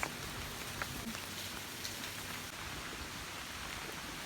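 Steady rain falling, with a few faint drop-like clicks.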